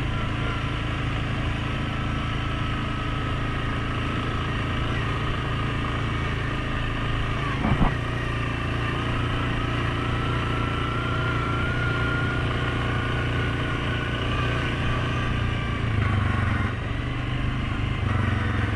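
Suzuki King Quad 750 ATV's single-cylinder engine running steadily while riding, with a thin high whine over the engine hum that drifts slightly in pitch. A single sharp knock sounds about eight seconds in.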